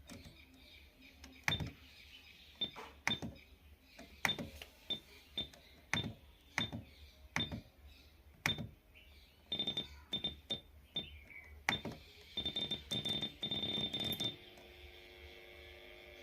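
Buttons being pressed on the amplifier during setup: a dozen or so sharp clicks, each with a short high beep, then quick runs of beeps near the end. A faint steady hum comes in after the last beeps.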